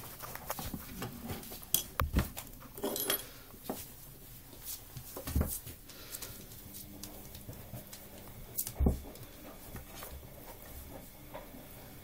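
Old English Sheepdog puppies stirring and shuffling on fleece bedding, with scattered soft knocks and light clinks; the loudest come about two seconds in and again near nine seconds.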